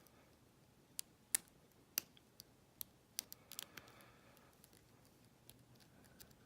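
Lock-picking tools clicking in the keyway of a Best padlock's core: about ten sharp, irregular metallic clicks, mostly in the first four seconds, as the pins are worked, which the picker takes for some pins setting.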